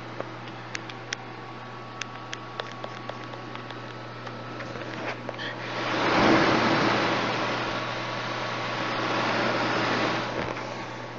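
Desktop gaming PC running with a steady fan hum and a few faint clicks. About six seconds in, a loud rushing noise swells up, eases, swells again and dies away near the end.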